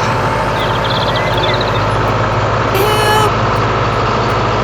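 Heavy-vehicle engine and machinery noise running steadily, with a brief pitched hoot about three seconds in.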